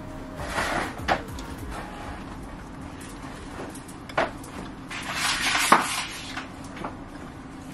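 Crisp fried taco shell crunching as it is bitten and chewed, with sharp crunches about four seconds in and a loudest crackle just before six seconds.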